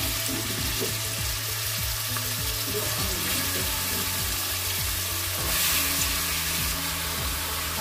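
Onion-tomato masala frying in oil in a pot, sizzling steadily as cubes of peeled turnip are tipped in. The sizzle swells briefly about five and a half seconds in.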